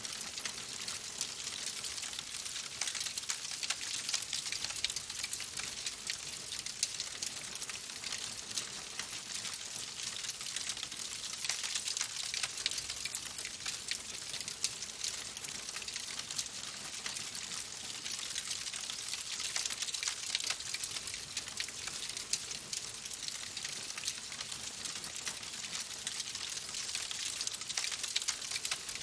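Wood fire crackling in a fireplace: a steady hiss of burning with dense, fast, small pops and snaps throughout.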